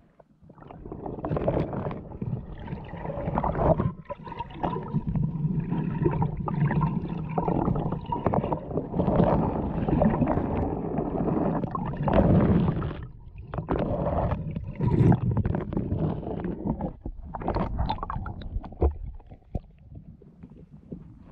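Muffled rumbling and sloshing of seawater around a camera held underwater, surging and gurgling as it is moved through the seaweed. It quiets near the end as the camera comes up to the surface.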